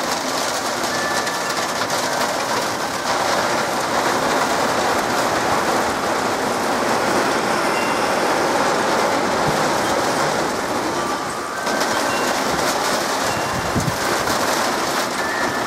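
Heavy rain pouring down in a steady, dense hiss, dipping briefly in level about three-quarters of the way through.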